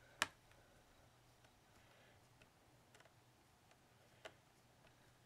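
Near silence with a few small clicks of a screwdriver and plastic as a computer's RAM access door is taken off: a sharp click about a quarter second in, another just after four seconds, and a few fainter ticks between.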